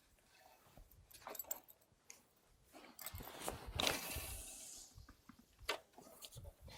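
Faint rustling and small scattered clicks, with a louder, hissy rustle lasting about two seconds in the middle.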